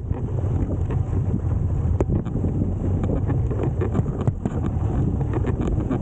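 Moto Guzzi V85TT's air-cooled V-twin running as the bike is ridden over rough ground, under heavy wind noise on the microphone. Scattered sharp knocks and clicks sound throughout.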